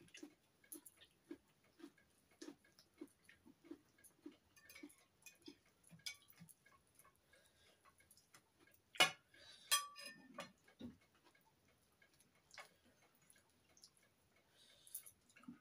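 Quiet eating sounds: cutlery clinking and scraping on china plates, with soft regular ticks about two a second early on. A sharp clink of cutlery on a plate comes about nine seconds in, followed by a few more clinks.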